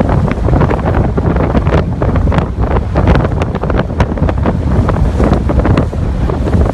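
Strong wind buffeting a phone's microphone on the open deck of a moving ferry. It makes a loud, steady rumble full of irregular crackles.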